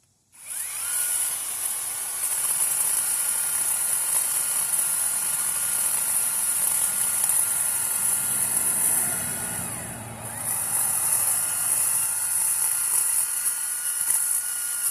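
Chainsaw starting up and running at full speed, cutting into a small tree; about ten seconds in it slows briefly, then comes back up to speed.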